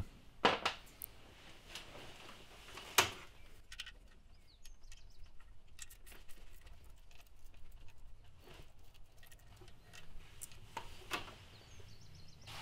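Scattered small metallic clicks and taps of a socket wrench with an 8mm socket being worked on the water pump bolts, with a sharp knock about three seconds in.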